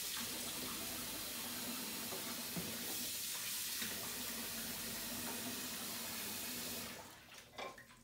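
Kitchen sink faucet running steadily while dishes are washed under it. The water stops about seven seconds in.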